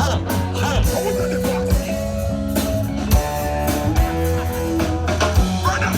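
Band music: guitar playing a line of held melodic notes over bass and a steady drum beat.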